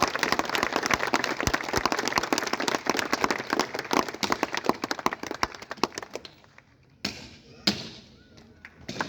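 Boots stamping in BSF parade drill: a dense clatter of many impacts with voices behind it, dying away about six seconds in, then two sharp, loud stamps about a second apart.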